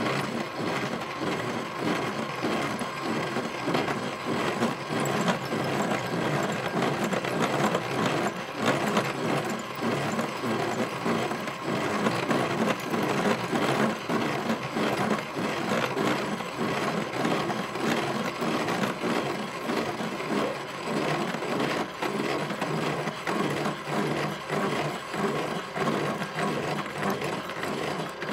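Drill press bit cutting into steel: the machine runs on with a steady whine under a continuous, rapid grinding chatter of the bit in the metal.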